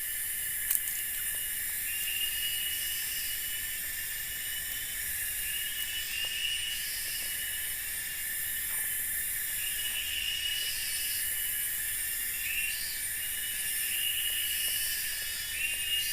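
Chorus of forest insects such as cicadas: a steady high buzz with a short rising call repeating every second or two.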